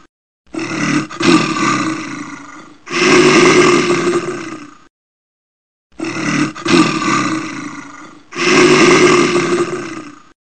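Bear roaring: four loud, rough roars of about two seconds each. The second pair repeats the first exactly after a short pause.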